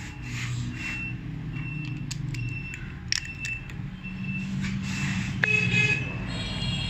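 Workshop background: a steady low engine hum, with short high beeps coming irregularly and a few sharp clicks of small metal parts being handled.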